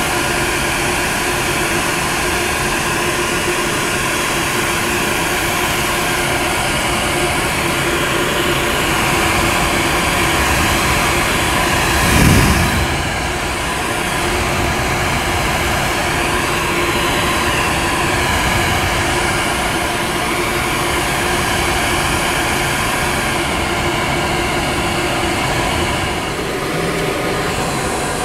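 Pet grooming blow dryer running steadily, blowing air through a poodle's wet coat, with one brief low thump partway through.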